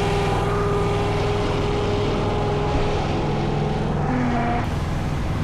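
An engine running steadily at a constant speed, with a hint of a change near the end.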